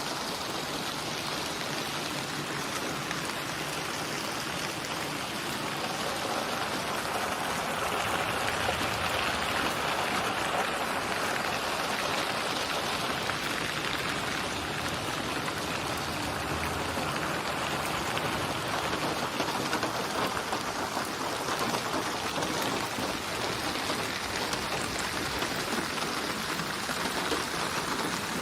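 Steady rain falling, an even hiss of many drops with no distinct splashes.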